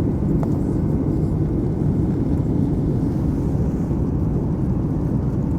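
Boeing 737 MAX jet airliner's engines and airflow making a steady low rumble.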